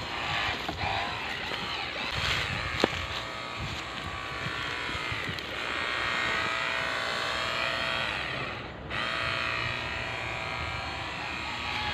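Small battery-powered spray pump of a cordless water gun running steadily, drawing weed killer from a knapsack tank and spraying it. It cuts out briefly just before nine seconds in, then runs on.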